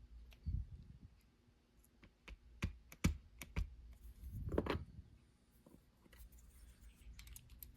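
Steel tweezers and small lock pins clicking against the Master Lock 527's aluminium padlock body as pins and springs are dropped into a pin chamber: a dozen or so scattered light clicks, with a couple of softer handling knocks.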